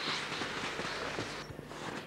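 Footsteps in snow, with a steady rushing noise underneath that drops away about one and a half seconds in.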